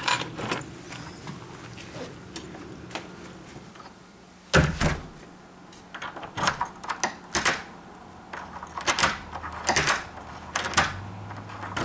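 A door being tested with its new Kwikset deadbolt: a heavy thud about four and a half seconds in, then repeated clicks and clacks as the deadbolt is worked against a freshly fitted strike plate. The bolt does not yet run smoothly, and the plate still needs adjusting.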